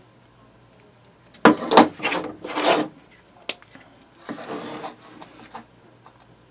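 Handling noise at a table: several loud scraping, rubbing strokes as scissors and a tape-covered brass padlock are worked and set down, then a sharp click and a softer rub as a marker is picked up.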